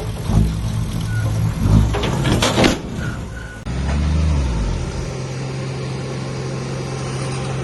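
Heavy diesel engine of construction machinery running steadily, with a short loud rushing noise about two and a half seconds in. Just past halfway the sound cuts off abruptly and another diesel engine is heard running steadily.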